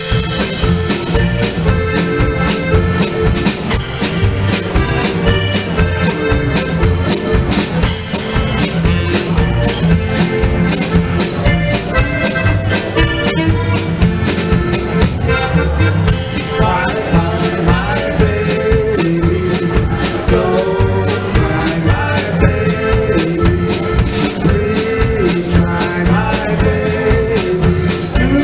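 Live polka band playing a tune on accordion, saxophone, acoustic guitar and drum kit, with a steady beat.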